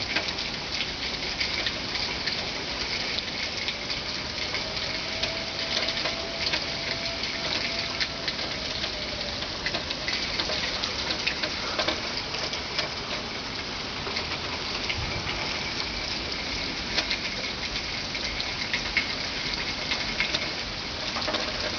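Steady rain hiss with scattered drips. From about four to nine seconds in, a distant fire whistle (siren) wails faintly as one held tone.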